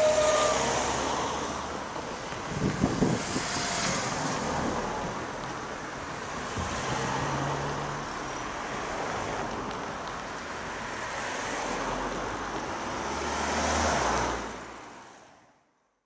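Cars and vans driving one after another over a railway level crossing, with tyre and engine noise swelling and easing as each vehicle passes. The sound fades out near the end.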